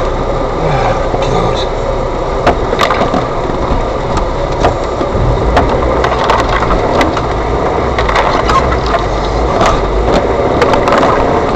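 An Isuzu Bighorn 4x4 driving slowly off-road along a muddy, overgrown track, heard from inside the cab. The engine's steady deep rumble runs under a constant scatter of sharp knocks and clicks as the body and suspension jolt through the ruts.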